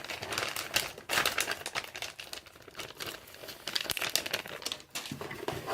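Plastic bait packaging crinkling and rustling as it is handled: a pack of soft plastic worms being opened and folded, with irregular crackles coming in quick clusters.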